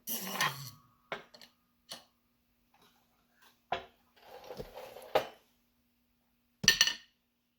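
Metal clinks and knocks from tools and steel parts being handled on a workbench, with a short scraping stretch and then a louder metallic clatter near the end.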